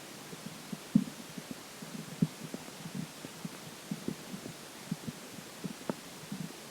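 Stomach gurgling heard close up, water moving in the stomach: irregular small pops and bubbles, with louder pops about a second in and just after two seconds.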